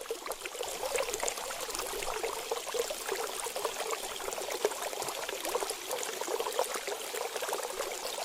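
Water trickling and splashing, a steady fine bubbling with little low rumble.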